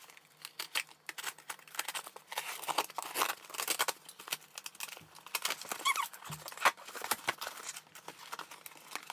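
A cardboard shipping parcel being opened by hand: a quick, irregular run of rips, rustles and crinkles from the tape and packing.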